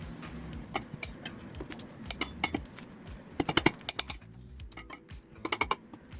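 Metal hand tools clicking and clinking against a diesel engine, in quick bursts of rapid clicks about halfway through and again near the end.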